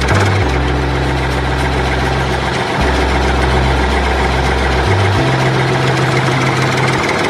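Tractor engine idling steadily with a low hum and a rattly chug over it; the hum shifts in pitch a few times.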